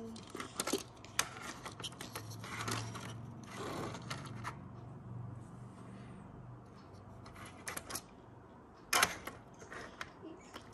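Small die-cast toy car clicking and tapping against a hard plastic playset as it is handled and set down, with the sharpest clicks about nine seconds in.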